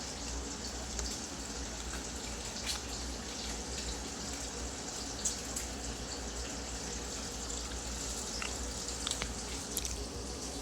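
Steady hiss with a few light clicks of cutlery against a plate, scattered and most frequent near the end.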